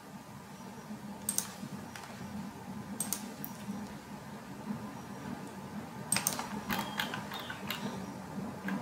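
Scattered clicks from a computer mouse and keyboard: single clicks about a second and three seconds in, a quick cluster around six seconds in, and another near the end, over a faint steady low hum.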